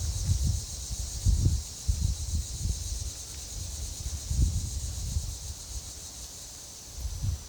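Wind gusting against the microphone in uneven low rumbles, over a steady high-pitched chorus of insects.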